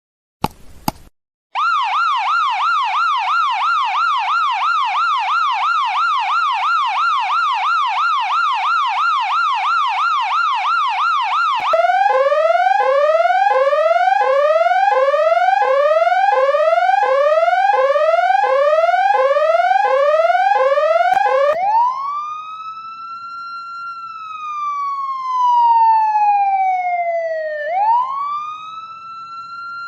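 Siren sound effects played one after another. First a fast yelp warbling about three times a second, then a quick rising sweep repeated about once a second starting about twelve seconds in, then a slow wail that rises and falls, starting its rise again near the end. A few short clicks come at the very start.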